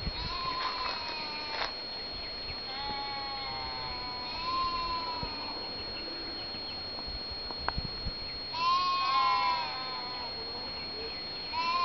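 Livestock bleating: several drawn-out, wavering bleats a few seconds apart, the loudest about nine seconds in and another just starting at the end.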